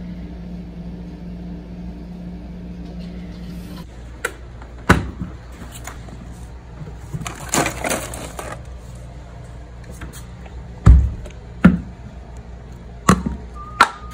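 A steady low hum that stops about four seconds in. Then a hand rummages among plastic baby bottles and ice in a cooler, making scattered knocks and clicks, with a heavier thud near the end as a bottle is set down on a table and uncapped.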